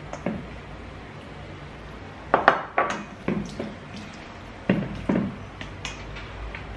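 A spoon knocking and scraping against a stainless steel mixing bowl as potato salad is stirred. There are several sharp knocks in two clusters, one about two and a half seconds in and one about five seconds in, with lighter clinks between them.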